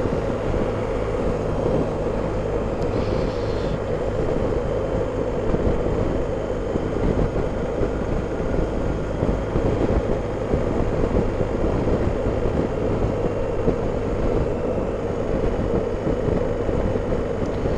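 Steady riding noise from a BMW R 1250 GS Adventure motorcycle at an even cruising speed: wind rushing over the microphone mixed with the boxer-twin engine and tyre noise, with no revving or gear changes.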